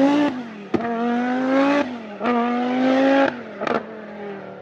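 A racing car engine accelerating hard through the gears. The pitch climbs in each gear and drops at each shift, about every second and a half, with sharp cracks between the shifts. After the last change it eases off and fades.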